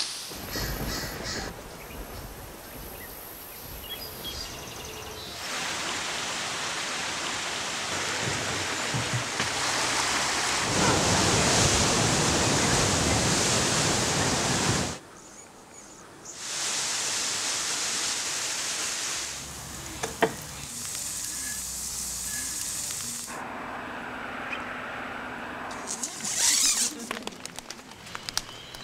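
A series of outdoor sounds that change abruptly at edits. Footsteps on a dirt trail come at the start, and a long, loud rushing of sea surf breaking on rocks fills the middle. A cluster of sharp crackles comes near the end, likely a campfire.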